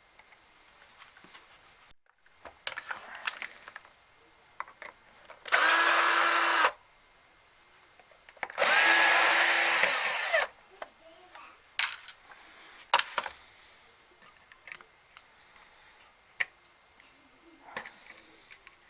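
A small handheld power tool's electric motor running in two short bursts, about one second and then about two seconds, the second winding down as it stops. Light clicks and handling knocks come before and after.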